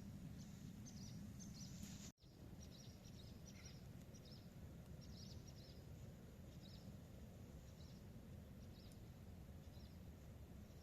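Swallows chirping: short, high calls repeated every second or so, faint over a low background hum.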